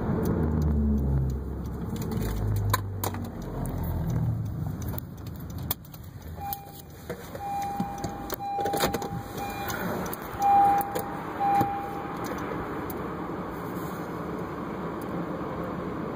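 Road noise inside a moving car, with scattered clicks and rattles from the phone being handled. From about six to twelve seconds in, a steady mid-pitched tone sounds in five or six on-off stretches; these are the loudest moments.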